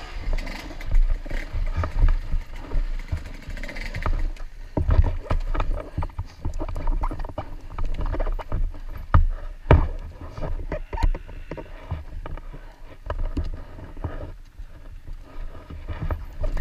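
Dirt bike engine running at low revs over a rough trail, with scattered sharp knocks and rattles from the bike's chassis and from brush and logs striking it, heard from a helmet-mounted camera.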